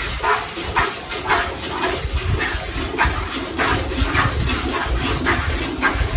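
Cow being milked by hand, milk squirting into a metal pail in a steady rhythm of about three squirts a second.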